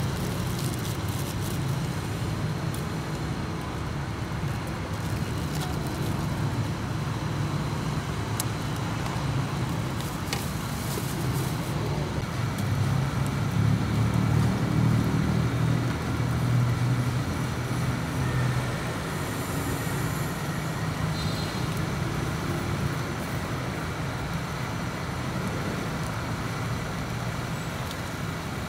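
Steady low rumble of passing road traffic, swelling a little midway, over a constant hiss.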